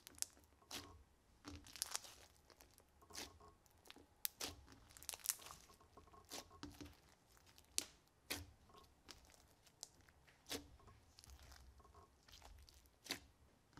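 Thick slime mixed with small beads being pressed, squished and stretched by hand, giving irregular sticky pops and crackles.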